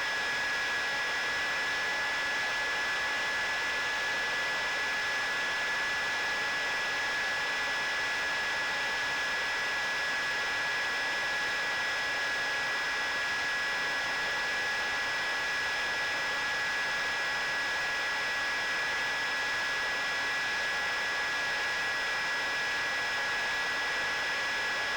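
ZOHD Drift model plane's electric motor and propeller running at a steady throttle: a constant whine over an even rush of air, with no change in pitch.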